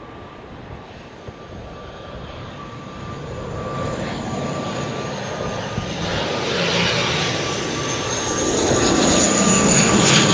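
Binter Airlines airliner on approach to land, its engines growing steadily louder as it nears, with a steady whine over the rushing noise.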